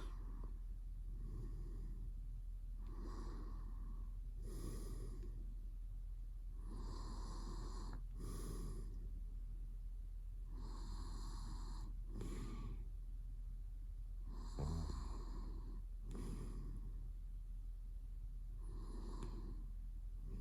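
A sleeping man snoring softly, each breath in and out coming about every four seconds, with one louder, rattling snore about two-thirds of the way through.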